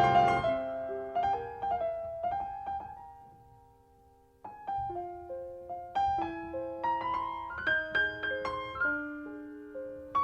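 Background piano music: a slow melody of single held notes that fades to near silence about four seconds in, then picks up again with new notes.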